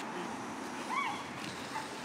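A German Shepherd puppy gives one short, high yip about halfway through, over a steady outdoor background hiss.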